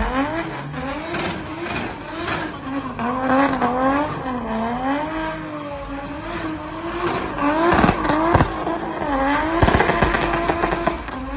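Drift car's engine running hard, its pitch swinging up and down again and again as the throttle is worked through the slide, with tyre squeal. A few sharp cracks come about two-thirds of the way through.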